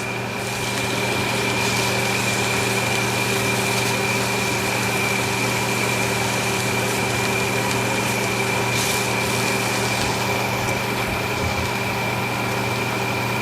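A kitchen appliance's electric fan motor running steadily: a constant hum with a thin high whine over it.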